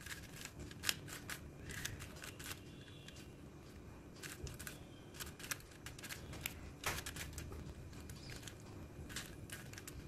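Plastic 4x4 Rubik's cube being turned by hand: faint, irregular clicks and rattles as its layers rotate and snap into place.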